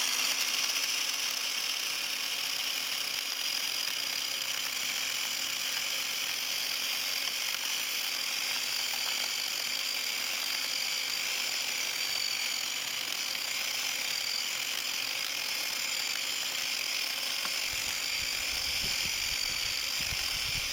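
16-inch electric chainsaw running continuously at steady speed, an even high-pitched motor and chain whine. Irregular low knocks come in over the last few seconds.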